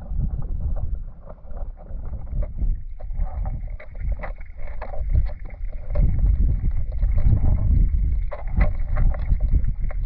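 River current heard from underwater: a muffled rushing and gurgling rumble with many small clicks, growing louder about six seconds in.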